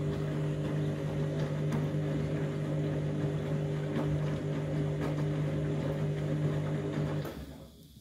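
Front-loading washing machine turning its overloaded drum in the final rinse: a steady motor hum with water sloshing and clothes tumbling. About seven seconds in the motor stops and the sound dies away as the drum comes to rest.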